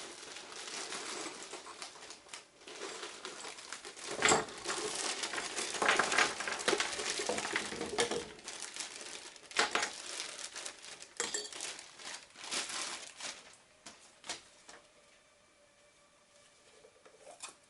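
Rustling and handling noise from building work, with a few sharp knocks in between. It fades to a quieter background near the end.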